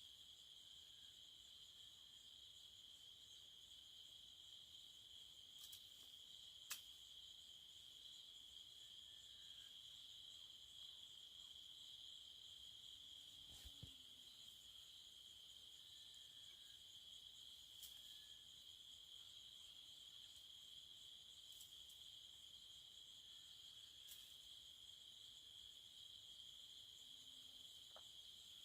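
Faint, steady high-pitched trilling of insects, one unbroken tone with no pauses, with a few brief clicks scattered through it.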